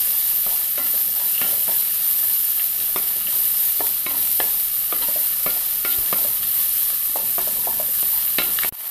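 Sliced shallots and chillies sizzling in coconut oil in a nonstick wok, stirred with a wooden spatula that scrapes and clicks against the pan many times at an irregular pace. The shallots are being sautéed until they wilt. The sound drops out briefly near the end.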